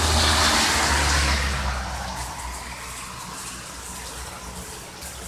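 Thunder rumbling over heavy rain, loudest in the first two seconds and then fading, leaving the steady hiss of the rain.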